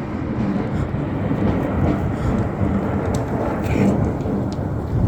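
Thunder rumbling loudly and steadily after a very close lightning strike.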